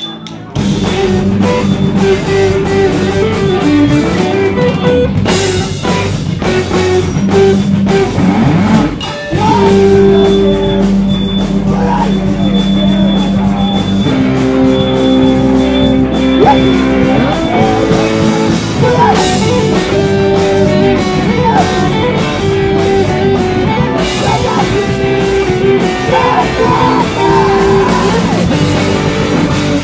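Live emo rock band starting a song: electric guitars and a drum kit kick in loudly about half a second in, with singing over them.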